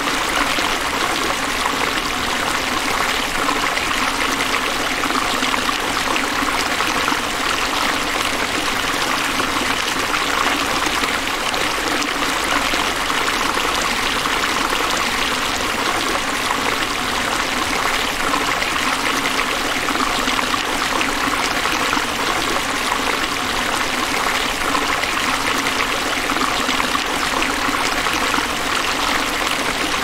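Niagara Falls rushing steadily, the river's rapids pouring over the brink in an even, unbroken roar of water.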